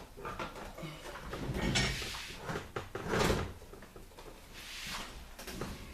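A plastic computer monitor and its stand being handled and set upright: rustling, scraping and light knocks, loudest about three seconds in.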